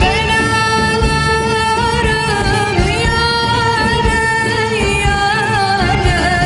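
A woman singing a Turkish Islamic nasheed over instrumental accompaniment, holding long notes with wavering ornaments.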